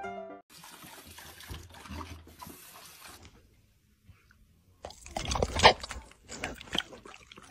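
Faint watery hiss, like water moving in a shallow tub. After a short pause, a louder burst of rustling and knocks about five seconds in.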